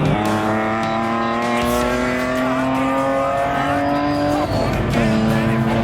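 BMW race car engine accelerating hard, its pitch climbing steadily for about four seconds, then dropping sharply at an upshift and climbing again in the next gear.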